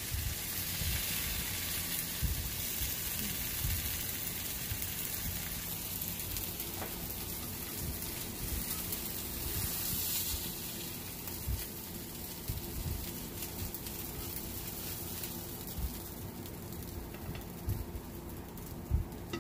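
Tomato-and-egg slices with melted mozzarella sizzling in a hot frying pan, the sizzle slowly dying down after the heat is switched off, with soft knocks and scrapes of a nylon spatula as the slices are lifted onto a plate.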